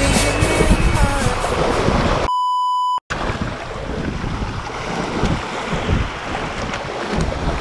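Background music for about two seconds, then a steady electronic beep about two-thirds of a second long that cuts off abruptly. After it, wind buffeting the microphone and waves washing over shore rocks.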